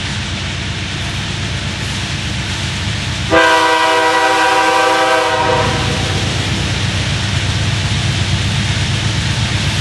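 Diesel locomotive's air horn sounds one blast of about two seconds, starting about three seconds in. Under it runs the steady rumble of the approaching train.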